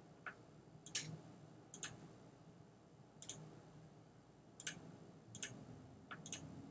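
Faint, irregular clicks of a computer's pointing-device button, about eight in all, a couple of them in quick succession.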